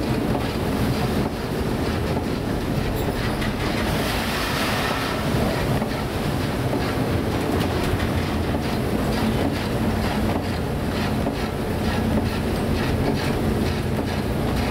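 Emergency response and rescue vessel in a storm, heard from inside the wheelhouse: a steady engine and hull rumble with rattling and the wash of heavy seas, a brief surge of hiss about four seconds in.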